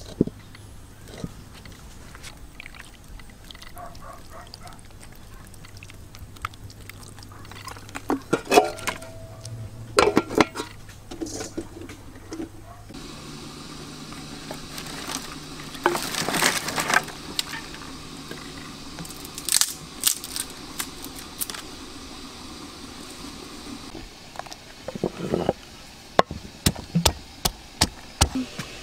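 Outdoor cooking over a wood fire: scattered knocks, clatter and handling noises over a low steady hum. Near the end comes a wooden pestle pounding in a wooden mortar, a quick run of sharp knocks.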